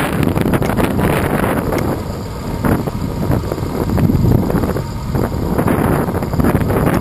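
Wind buffeting the microphone of a handlebar-mounted GoPro Hero 2 on a moving bicycle: a loud, deep, uneven rush that eases briefly a couple of times.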